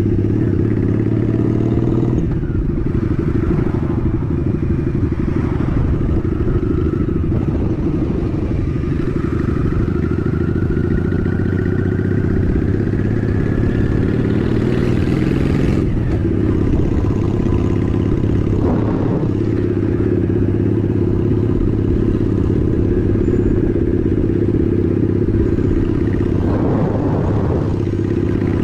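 Honda Shadow 750 ACE's V-twin engine running as the motorcycle is ridden, heard from the rider's seat; its pitch climbs steadily for several seconds about midway as the bike accelerates.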